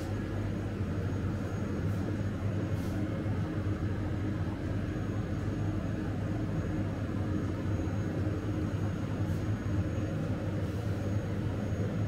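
Steady low mechanical hum made of a few constant tones, with a handful of faint short clicks.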